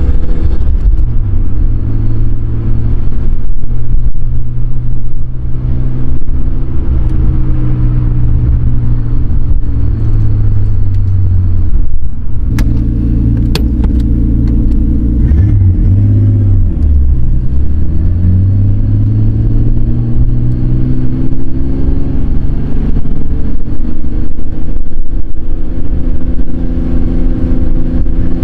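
Nissan Skyline R33's turbocharged RB25DET straight-six heard from inside the cabin through its aftermarket exhaust, revs climbing and dropping as the car accelerates and shifts through the gears.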